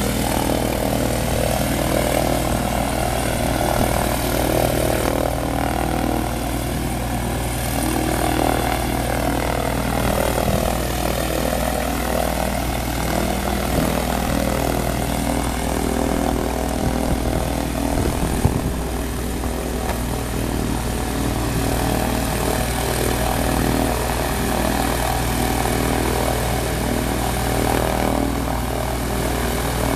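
A light propeller aircraft's piston engine running steadily at idle, a low, even engine hum.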